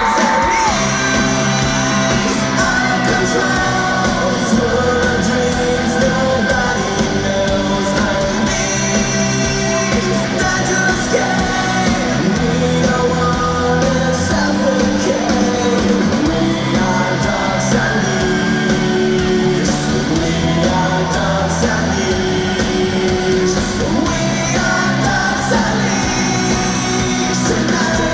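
Live rock band playing loud and without pause: a male lead singer sings into a microphone over electric guitar and a steady beat.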